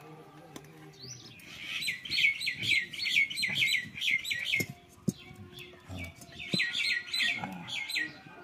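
A bird calling in two quick runs of repeated chirps, about five a second, with a single sharp click between the runs.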